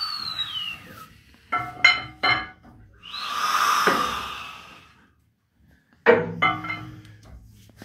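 Metal clanks and ringing knocks as a stopped 1954 Wichmann two-cylinder two-stroke diesel is barred over by hand, with air rushing out of its open compression cocks as a swelling, fading hiss. A whistling tone that rises and then falls in pitch dies away just under a second in, and one more sharp ringing clank comes near the end.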